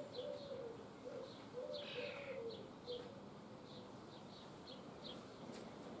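Young common starlings (Sturnus vulgaris) giving short, high chirps, a dozen or so scattered through, with a longer raspy call about two seconds in. A low, wavering cooing repeats underneath during the first three seconds.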